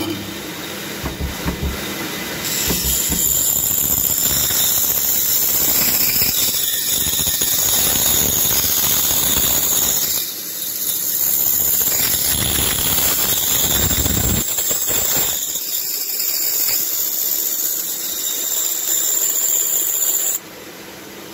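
Pégas fine-cut band saw running and slicing a thin piece off a block of wood: a loud, steady hiss with a high squeal, dipping briefly about halfway and dropping off suddenly near the end. The wood is pushed through quickly.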